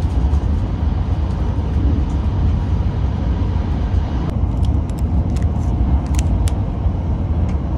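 Steady low rumble of a Hayabusa Shinkansen bullet train running along the line, heard from inside the passenger cabin. From about halfway through, light crinkles of a plastic snack wrapper handled close by.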